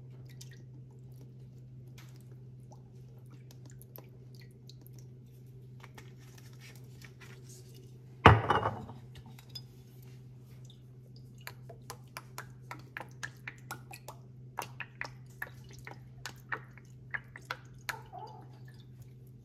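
Sauce bottles handled over a ceramic bowl: one loud knock about eight seconds in, like a bottle set down on the counter, then a run of quick light clicks and drips as Golden Mountain seasoning sauce is shaken out of its bottle into the bowl. A steady low hum sits under it all.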